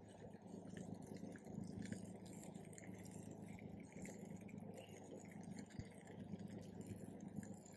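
Vegetables sizzling faintly in a frying pan over a campfire as they are stirred with chopsticks, with faint scattered ticks over a steady low rumble.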